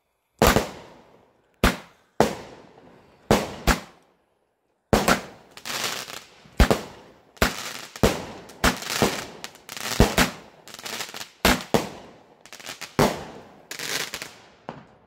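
Fireworks exploding: a long irregular run of sharp bangs, each trailing off in an echoing tail. A few bangs come first, then after a brief silence about four seconds in a dense volley follows.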